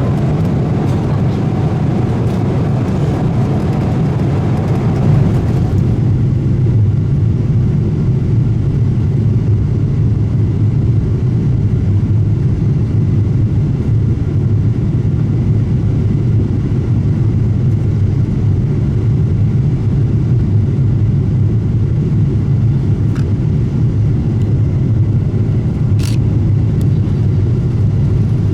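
Cabin noise inside a Boeing 777-200LR: a steady, loud low rumble of engines and airflow. About six seconds in, the higher hiss drops away and the low rumble carries on.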